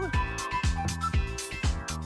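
Background music with a steady electronic beat, a kick drum about twice a second under held synth notes.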